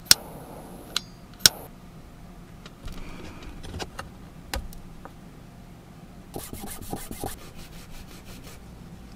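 Small hand-tool work on a tiny piece of 3D-pen plastic: three sharp clicks of a steel ruler and tool against a wooden board in the first second and a half, light ticks and scrapes, then about two seconds of quick rasping strokes from a needle file near the end.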